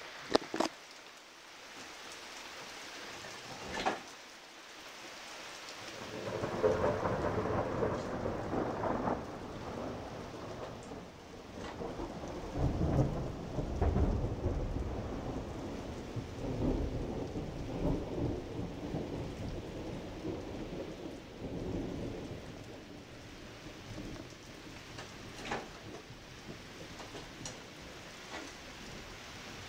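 Heavy summer rain hissing steadily, with a long peal of rolling thunder that starts about six seconds in, swells several times and dies away some fifteen seconds later. Two short sharp knocks come in the first few seconds.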